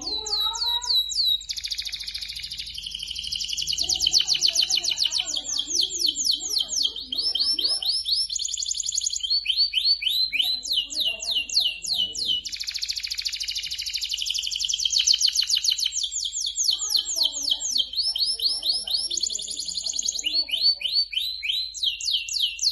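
Domestic canary singing a long, continuous song of rapid trills and fast runs of repeated notes, sung in full, constant voice (gacor).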